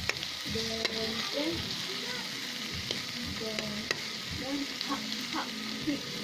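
Onion, garlic and tomato sizzling in hot oil in a wok. A metal spatula stirs them, scraping and clicking against the pan.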